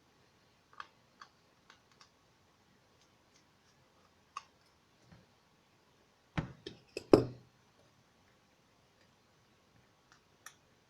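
Scattered small clicks and taps from handling the opened Samsung Galaxy Note's parts and tools during a charging-board swap, with a quick run of louder knocks and clacks about six to seven seconds in.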